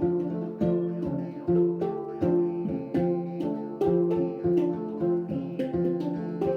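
Tonkori, the Ainu plucked string instrument, played in a steady repeating figure of open-string notes, a few plucks a second.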